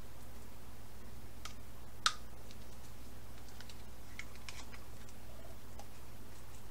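Faint scattered clicks and light scrapes of gloved fingers digging tomato paste out of a metal can, with one sharper click about two seconds in, over a steady low hum.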